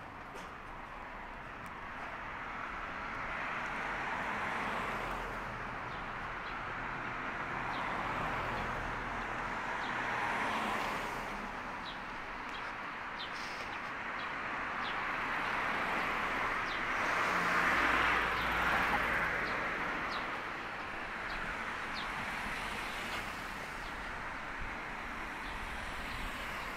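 Road traffic: cars passing one after another, the tyre and engine noise swelling and fading every few seconds.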